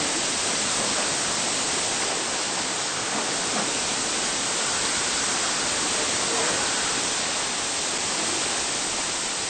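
Hurricane wind and rain: a steady, dense hiss of storm noise with no letup.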